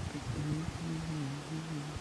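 A person humming a low tune, held notes stepping up and down in pitch.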